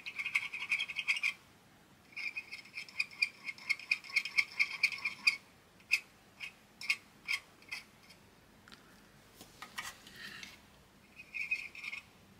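Soldering iron tinning a weak, corroded track on a multimeter circuit board: the flux sizzles and crackles in quick, pulsing stretches, with a few sharp light clicks in between.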